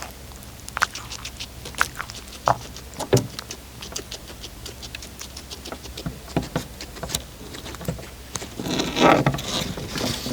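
A cat eating, irregular small crunching clicks of chewing, with a louder rustling burst near the end.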